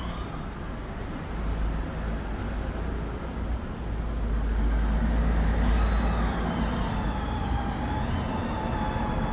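Hyundai Santa Fe engine running with a steady rushing noise and low rumble while its air conditioning is being charged with refrigerant. A faint wavering whine joins about six seconds in.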